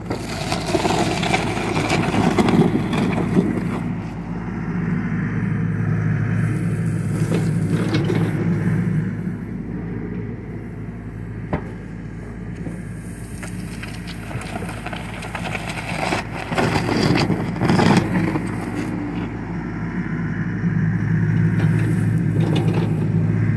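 John Deere 60G compact excavator's diesel engine running steadily, swelling louder several times as the hydraulics take load. Over it the bucket scrapes and crunches through soil, with occasional knocks.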